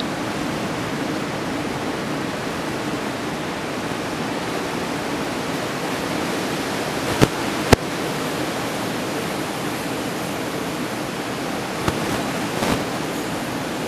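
Steady roar of breaking ocean surf. About halfway through there are two sharp clicks about half a second apart, and two fainter ones near the end.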